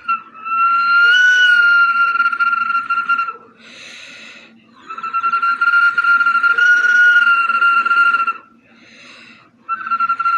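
Whistle bottle being played: long breathy whistle tones at one steady pitch, each held about three seconds, with short pauses between; the third tone starts near the end.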